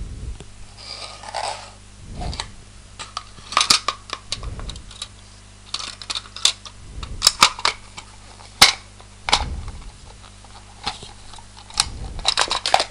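Hard plastic clicking and clattering as a clear plastic lid is fitted over a plastic flower-loom set in its case: many short, sharp clicks and knocks, some in quick clusters.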